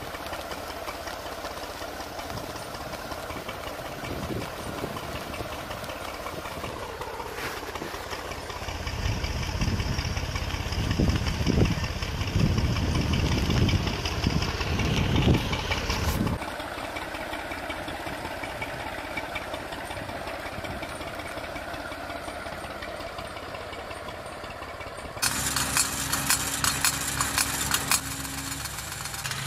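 Tractor engine running as it pulls a plastic-mulch layer over ridged soil, louder for a stretch in the middle. About 25 s in, the sound switches abruptly to a different engine humming at a steady pitch, from a walk-behind vegetable transplanter working the rows.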